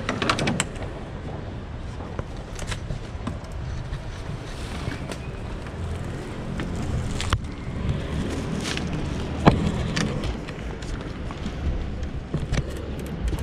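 Shopping bags and items being handled and unloaded from a car's boot: scattered knocks and rustles, with one sharper thump about nine and a half seconds in, over a low steady hum.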